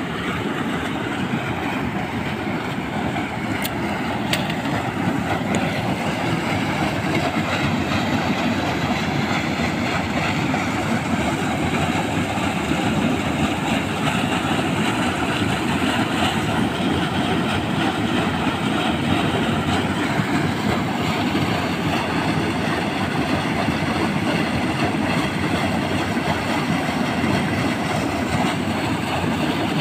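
Stream water rushing steadily, a dense low noise without pauses.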